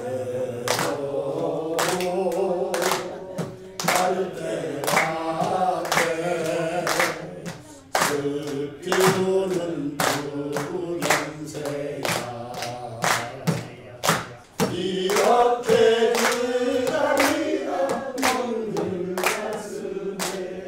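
Singing of a Korean song with hands clapping along on the beat, about two claps a second.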